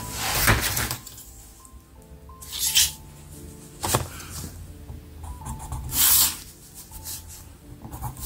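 Soft background music with a clear plastic grid ruler being laid on paper and slid about, giving short rustles and scrapes and one sharp tap about four seconds in.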